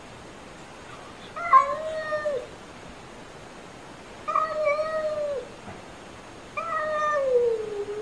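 Domestic cat meowing unfriendly: three drawn-out meows about a second apart, the last one longer and falling in pitch at the end.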